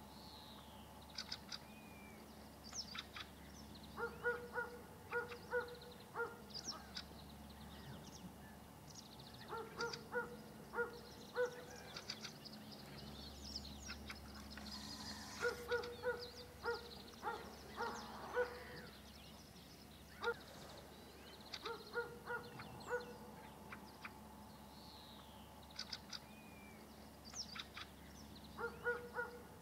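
Faint bird calls: short calls in quick runs of four to six, a new run every five or six seconds, with thin high chirps and short falling whistles between them.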